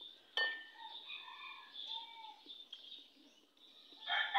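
A metal spoon clinks once against a bowl with a short ring, then faint bird chirps; near the end a rooster starts crowing, the loudest sound here.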